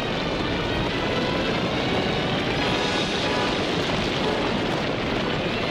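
Steady rumble of a stampede, a mass of running feet going past without a break.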